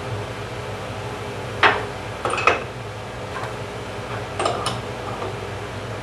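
Wrenches clinking against a wood router's collet nut as a half-inch router bit is fitted and tightened: about five sharp metallic clicks in two groups, the first the loudest, over a steady low hum.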